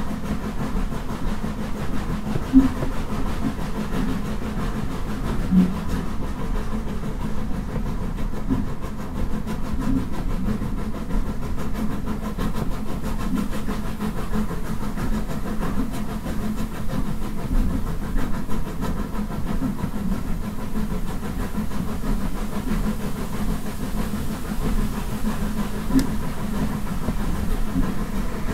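Steam-hauled passenger train, heard from aboard, running with a steady low rumble and a few light knocks from the running gear and rails.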